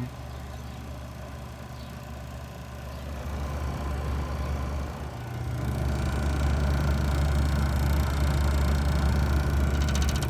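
1950s Westinghouse dehumidifier's old R12 compressor running with a steady low hum that grows louder about halfway through.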